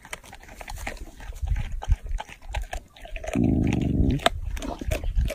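A dog growls once, deep and under a second long, about three seconds in, amid scattered clicks. It is guarding a piece of raw meat from another dog: a warning to keep off its food.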